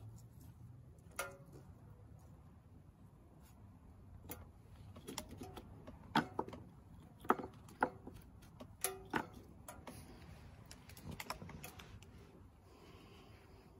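Scattered sharp clicks and snaps at irregular intervals, thickest from about five to ten seconds in.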